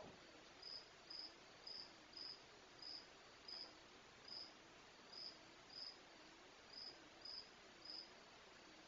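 Night insects, cricket-like, chirping faintly: short high chirps about twice a second, in runs with small gaps.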